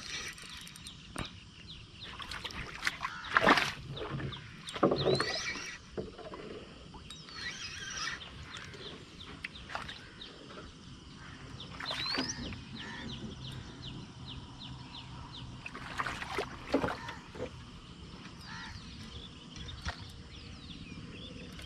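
Scattered knocks and bumps from a small wooden canoe, the two loudest about three and a half and five seconds in, with short bird chirps now and then.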